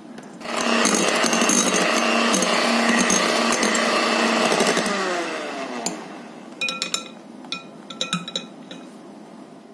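Electric hand mixer beating thin cake batter in a glass bowl: the motor starts about half a second in, runs steadily at speed, then winds down with falling pitch. Then several sharp clinks of the metal beaters against the glass bowl.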